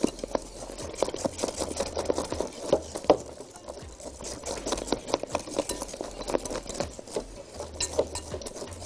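Hand wire whisk beating a thick whipped-cream and lemon mixture in a glass bowl: a rapid, irregular run of clicks and scrapes as the wires strike and drag along the glass.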